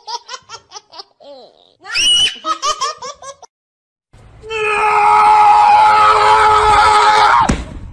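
A person laughing in quick giggles. After a brief silence comes a loud, steady held tone over a hiss that lasts about three seconds and ends with a sudden downward slide.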